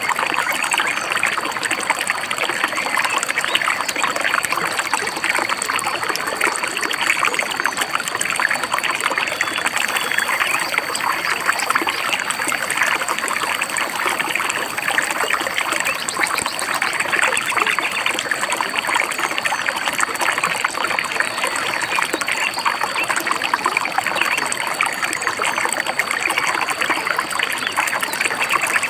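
A river babbling and trickling steadily, with a thin, steady high tone above it.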